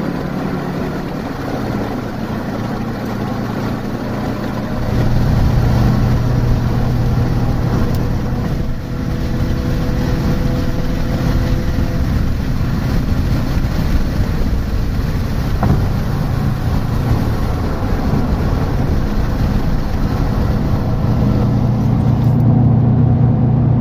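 A 2003 Subaru WRX's turbocharged flat-four engine, fitted with an aftermarket exhaust, running steadily as heard from inside the cabin. It grows louder about five seconds in and holds there.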